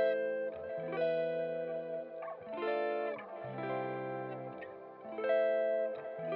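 Background music: a plucked electric guitar with effects, playing chords that change about once a second.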